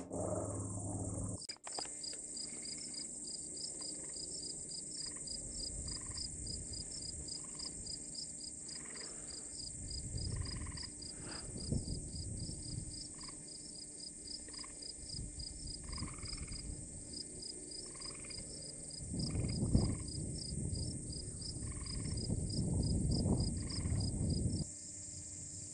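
Field insects chirping, a fast even pulse of about three chirps a second over a steady high insect hiss, with a lower call repeating roughly once a second. Low rumbling noise comes and goes and is loudest near the end.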